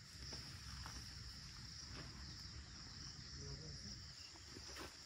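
Faint, steady high-pitched drone of an insect chorus in the forest, with a few soft ticks.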